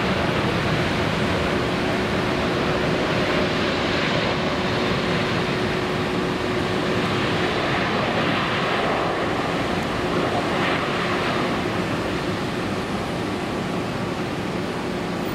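Boeing 777-300ER airliner rolling out just after touchdown on a wet runway. A steady roar from its GE90 engines mixes with the hiss of spray off the tyres, easing slightly near the end.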